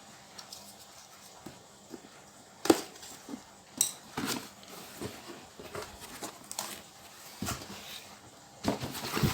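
A boxed mixer grinder's packaging being opened and handled by hand: scattered knocks, scrapes and rustles, with the loudest knocks about a third of the way in and near the end.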